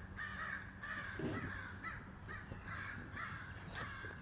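Several crows cawing, many short harsh calls in quick succession, fairly faint. This is alarm calling, which the owner puts down to a hawk close by.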